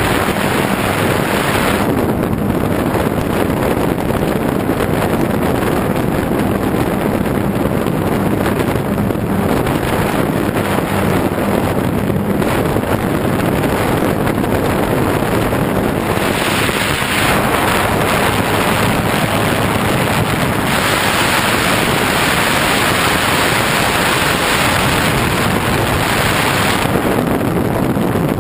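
Wind rushing over a bare GoPro camera mounted on a flying radio-controlled model plane, with the plane's motor and propeller running underneath. The rush grows louder and brighter a little past halfway, then eases near the end.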